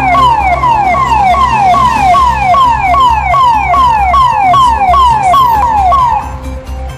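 Fire tender's electronic siren sounding a rapid falling wail, each sweep dropping in pitch, about two and a half a second; it cuts off about six seconds in.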